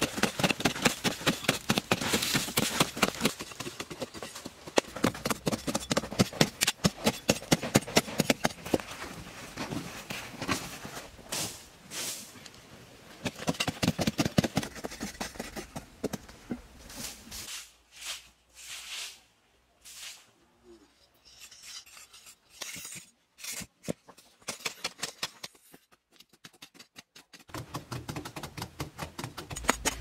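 Hand digging tools striking and scraping dry sandy soil in quick, repeated strokes, with dirt being loosened and pushed aside. About halfway through the strokes thin out and turn quieter for several seconds, then pick up again near the end.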